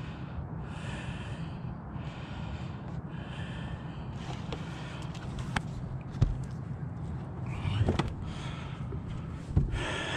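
Breathing close to the microphone, in slow soft breaths about a second long, over a steady low rumble, with a few sharp knocks of handled gear, the loudest near the end.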